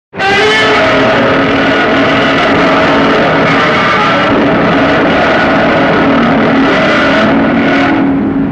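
A loud, sustained film sound effect: a harsh, pitched tone over a hiss, held at an even level, starting abruptly out of silence.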